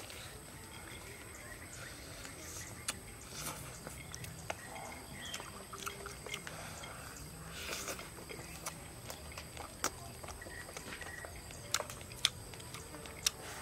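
A person biting into and chewing a crispy fried chicken drumstick, with scattered sharp clicks and smacks of the mouth.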